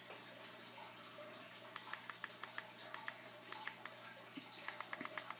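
Light clicks and taps from handling a rubber-clad Bluetooth speaker and phone, several a second in short bursts from about two seconds in, over a steady low room hum.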